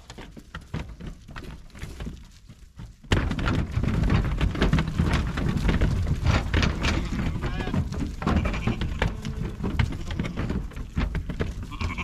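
Lambs bleating a few times while their hooves clatter and thump on a livestock trailer's ramp as they run out of the trailer, the clatter starting abruptly about three seconds in and carrying on to the end.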